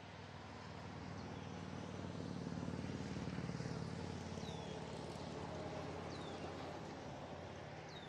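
A passing motor vehicle's engine hum swells to its loudest about three seconds in, then slowly fades. Three short downslurred bird calls come over it in the second half.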